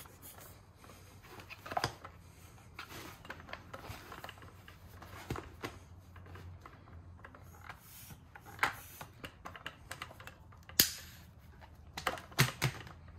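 Scattered light clicks and rubbing from handling a floor pump's head at the valve of a rubber bicycle inner tube and then the tube itself, with a few sharper clicks spaced irregularly.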